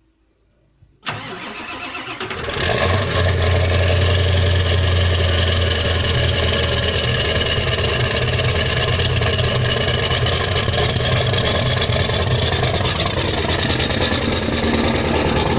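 Ford 7.3-litre Power Stroke turbodiesel V8 cold-starting at about −4 °F. About a second in, the starter cranks briefly; the engine catches about a second and a half later and settles into a steady cold idle.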